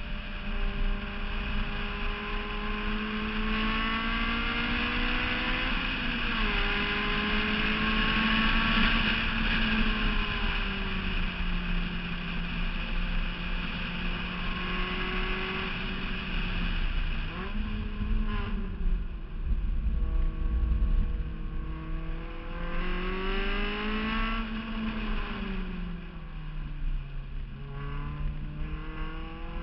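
Honda S2000's inline-four engine at speed on a racetrack, heard from outside the car. The engine note climbs under acceleration and falls away several times as the driver shifts and brakes for corners.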